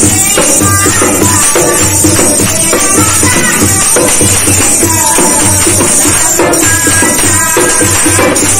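Two women singing a Garhwali devotional bhajan to a hand-played dholak drum in a steady rhythm, with hand clapping.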